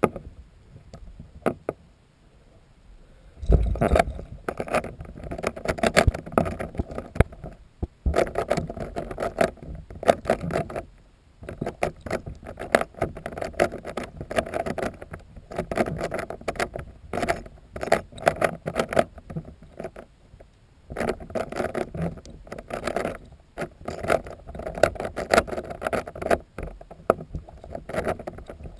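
Rubik's brand Rubik's Cube being turned fast underwater: dense runs of clicking and rattling starting a few seconds in, broken by a few short pauses.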